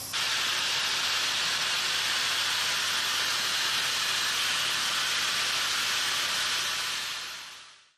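A loud, steady hiss that starts abruptly and fades out near the end.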